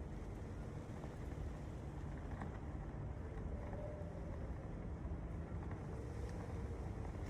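Steady low outdoor rumble of ambient background noise, with no distinct events.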